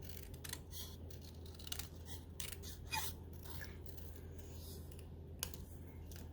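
Small paper-craft snips cutting paper: a run of faint, irregular little snipping clicks.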